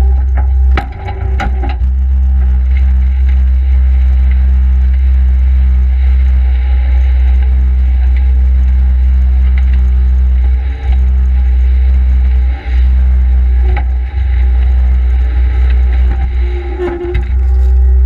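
Case skid steer loader's diesel engine running steadily with a deep drone, with a few sharp knocks and clatters about a second in and again near the end.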